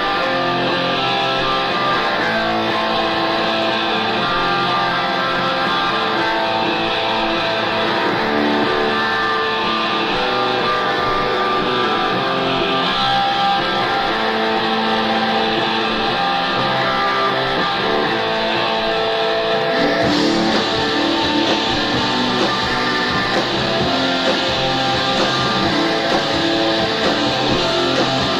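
Rock band playing live, electric guitars holding dense chords over bass and drums, heard through an audience recording. About twenty seconds in the sound gets brighter and a little louder.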